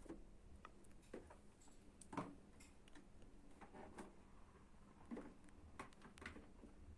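Near silence with faint, irregular clicks and ticks over a low room hum.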